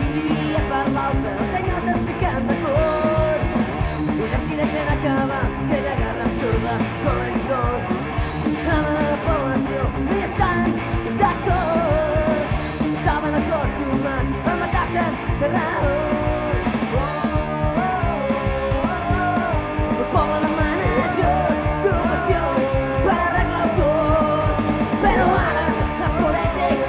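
Rock band playing guitars, bass guitar and drums, with a man's voice singing in Catalan that comes in about two seconds in.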